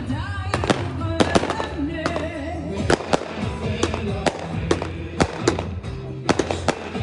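Fireworks going off in sharp, irregular bangs and crackles, about three a second, over loud music with heavy bass played through big loudspeakers.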